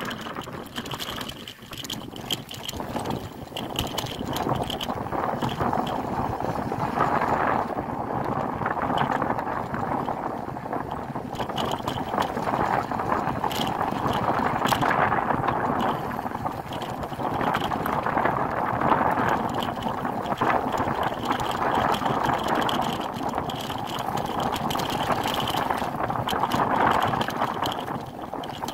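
Bicycle riding over a dirt singletrack trail: steady tyre noise on dirt mixed with wind across the microphone, swelling and easing, with a few sharp rattles from the bike.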